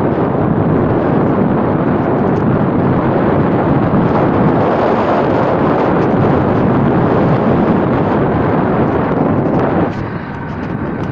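Wind buffeting the microphone while moving along, a loud steady rushing that eases off about ten seconds in.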